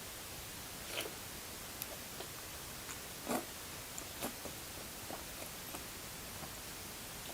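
Close-miked eating of rice-noodle soup: a handful of short, separate mouth sounds and clicks as the noodles are taken in and chewed, over a steady faint hiss.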